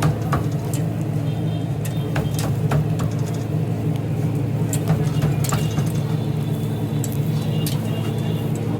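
Busy street ambience: a steady low engine hum with scattered sharp clicks and clatter over it.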